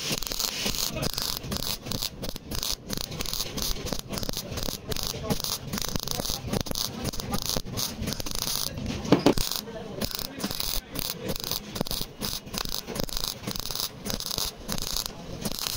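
MIG welder crackling as it lays short stitch welds along a sheet-metal car door seam, the arc starting and stopping in quick bursts with brief gaps between. One brief louder sound about nine seconds in.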